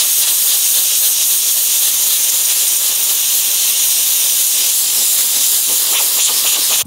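Compressed-air blow gun on a shop air hose blasting a steady jet of air, a loud, even hiss that cuts off abruptly near the end.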